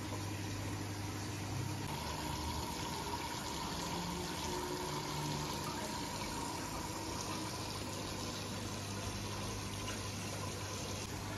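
Aquarium sump filter running: a steady wash of water splashing and trickling through the filter chambers, over a low pump hum.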